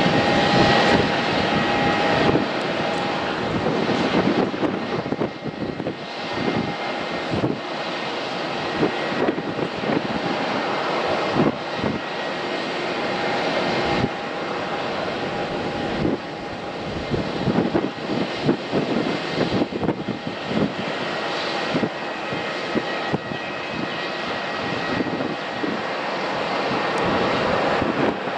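The twin GEnx-1B turbofan engines of a Boeing 787-8 jet airliner on approach and landing: a steady jet engine rush with a high, even whine over it.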